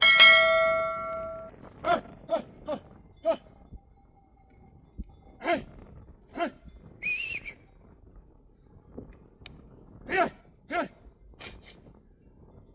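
A sheep bell clangs loudly and rings out for about a second and a half, followed by a scattering of shorter bell clanks as the flock moves.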